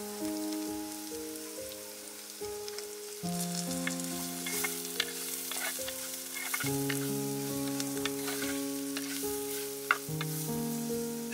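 Onions and chilli flakes sizzling as they fry in a clay pot, with a wooden spoon stirring and clicking against the pot, two sharper knocks about five and ten seconds in. Soft background music of held chords plays underneath.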